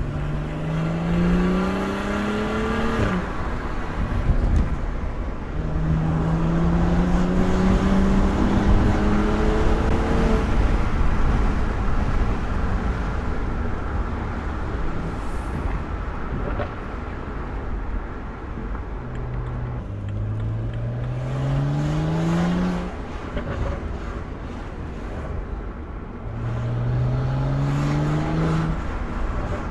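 BMW N55 turbocharged straight-six, breathing through a VRSF catted downpipe, pulling four times under acceleration: the engine note rises through each gear and falls at the shift. Steady road and exhaust drone runs between the pulls.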